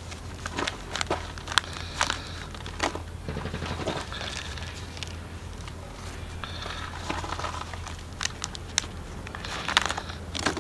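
Gloved hands handling a small potted seedling in a thin plastic nursery pot: irregular crinkling, rustling and sharp clicks of plastic and leaves, over a steady low hum.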